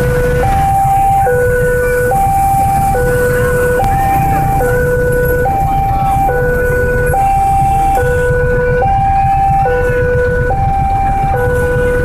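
Railway level-crossing warning alarm sounding a steady two-tone hi-lo, each tone held a little under a second, over a constant low rumble.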